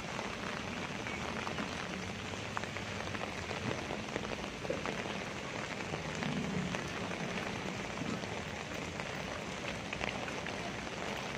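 Rain falling steadily on wet paving, an even hiss with scattered light ticks of drops.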